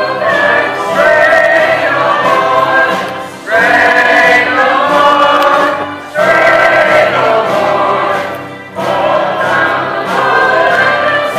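Stage ensemble singing in chorus, backed by a live pit orchestra with brass and strings. The singing comes in long held phrases with brief breaks between them.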